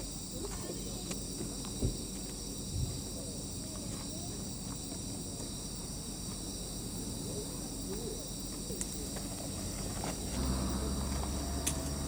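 Steady chorus of night insects such as crickets singing, with a few soft clicks and two low thumps early on.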